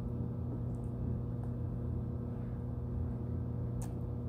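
A steady low hum, with a faint click near the end.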